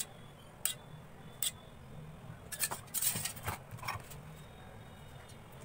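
Curd poured from a steel bowl over dahi bhallas in a glass bowl: a few sharp clicks and taps of the steel bowl and utensils, with a brief cluster of clicks and a short wet scrape about three seconds in.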